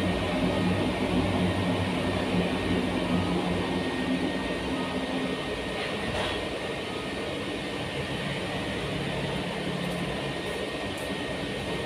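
Cremation furnace burner running steadily, a constant rushing noise with a low hum that drops slightly about halfway through.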